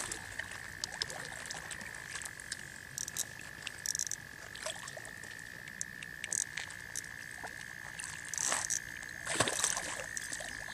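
A big grass carp splashing at the surface near the bank, twice, about eight and nine seconds in. Under it runs a steady high-pitched trill, with scattered light clicks.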